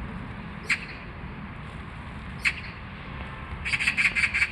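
Oriental magpie calling: two short single notes about a second apart and then two seconds later, then a fast chattering run of repeated notes near the end.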